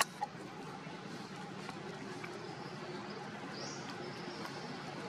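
Quiet outdoor ambience with a steady background hum, two sharp clicks right at the start and one faint, brief high chirp a little past the middle.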